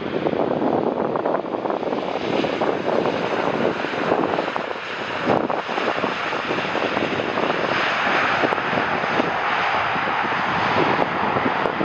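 Jet airliner engines during a landing, a steady rushing noise that turns brighter and more hissing from about eight seconds in.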